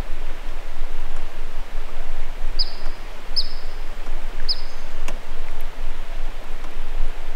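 Steady hiss of water trickling around a gliding canoe, with a small bird calling three short, high, falling chirps about a second apart in the middle.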